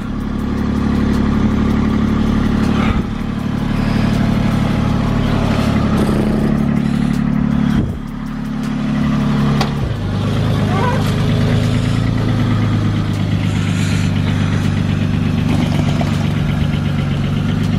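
Chevrolet Malibu engine running steadily through an exhaust whose leak has just been welded shut. Its pitch dips briefly about eight seconds in, then comes back up.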